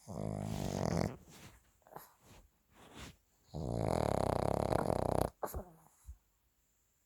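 A ten-year-old Pekingese snoring in its sleep: two loud snores about three and a half seconds apart, the second longer, with a short click just after it. This kind of snoring is typical of a flat-faced breed.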